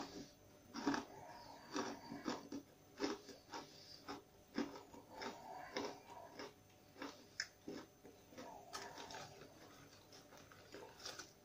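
Close-up chewing of thick, crunchy spiced pitta chips: a run of irregular crunches, fewer near the end.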